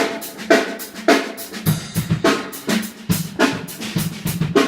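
Acoustic drum kit played in a studio room: snare and cymbal hits, toms that drop in pitch as they ring, and bass drum strokes coming in about a third of the way through. The toms and bass drum are left untuned.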